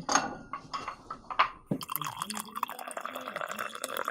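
A coffee cup handled with a few sharp clinks and knocks, then filled with liquid in a steady pouring stream from a little under halfway through.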